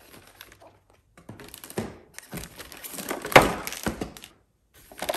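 Cardboard packaging handled by hand while a boxed toy set is unpacked: scattered knocks, taps and scrapes of cardboard, with the loudest thunk about three and a half seconds in.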